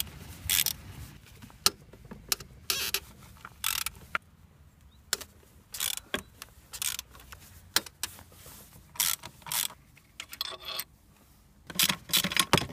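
Hand wrench on the bolts of a Saab 9-5's upper engine mount bracket: short, irregular bursts of ratcheting clicks and metal scrapes as the bolts are worked loose. A quick run of louder metal clatters comes near the end.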